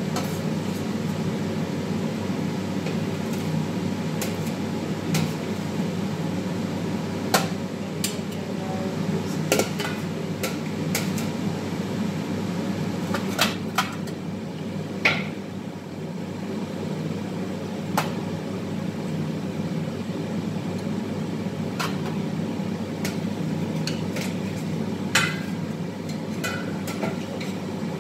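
Metal skimmer and spatula clinking and knocking against steel pans and trays, a dozen or so scattered strikes, over the steady hum of a commercial kitchen extractor hood.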